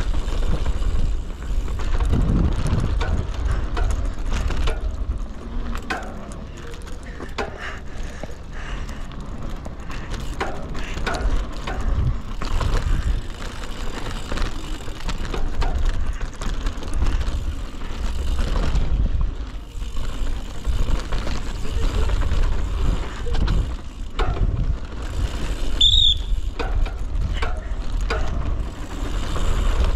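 Mountain bike riding down a dirt downhill trail: tyres rolling and the bike rattling and clicking over bumps, over a steady low rumble. A brief high-pitched squeal comes near the end.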